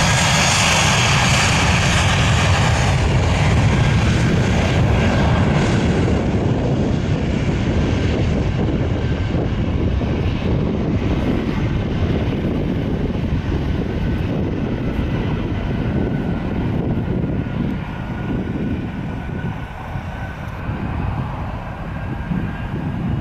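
Jet airliner engines running at high power on the runway: a loud, steady rushing roar that is brightest at first and slowly fades and dulls as the aircraft draws away.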